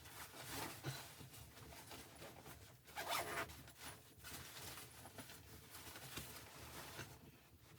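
Faint rustling and scraping, with a louder scrape lasting about half a second about three seconds in.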